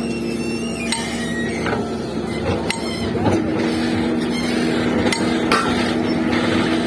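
Doosan excavator running with a steady engine hum, with several sharp metallic clanks and knocks, the loudest about 2.7 s and 5.5 s in.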